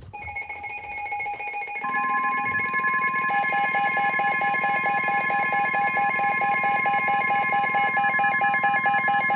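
Weather radio warning alert tones interrupting the broadcast: a long, steady, piercing alert tone begins about two seconds in. It is layered with other electronic tones and a fast on-off beeping, signalling that a warning message is about to be read.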